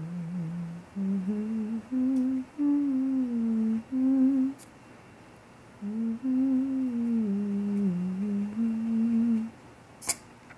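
A person humming a slow, wandering tune in two phrases with a short pause between them. A single short click comes near the end.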